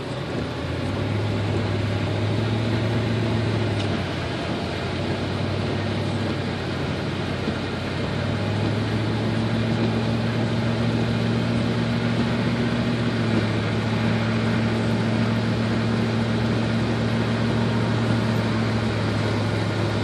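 Interior of a vehicle driving on a rain-soaked expressway: a steady low engine drone under a constant hiss of tyres on wet pavement, the drone shifting slightly in pitch a few times.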